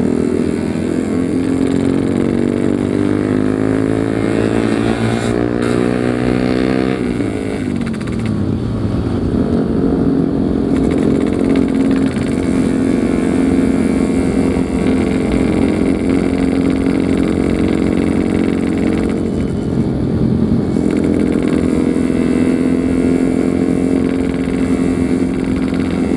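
Yamaha RX-King's two-stroke single-cylinder engine under way. Its pitch climbs steadily for about seven seconds as the bike accelerates, then drops sharply, and it runs on at a fairly even pitch for the rest of the time.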